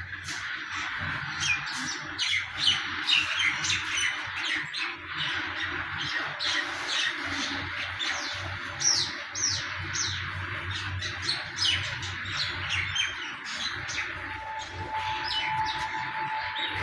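Many small birds chirping and squawking together, a constant stream of short, sharp, falling calls over a dense background chatter. A steady faint tone joins in about two-thirds of the way through.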